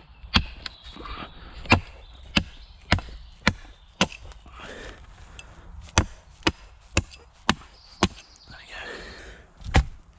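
Prandi German-type hatchet chopping into a thin wooden pole: sharp wooden blows about twice a second, about a dozen in all, in two runs with a short pause between them.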